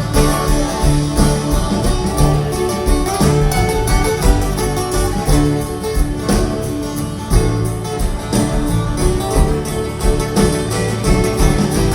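Live band playing an instrumental passage of a folk-rock song between sung verses: guitars over bass and drums with a steady beat.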